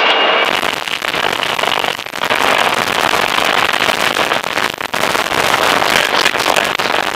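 Inside the cabin of a Ford Fiesta R5 rally car at speed on gravel: its turbocharged engine running hard under a dense crackle of gravel and stones rattling against the underbody, with brief dips about two and five seconds in.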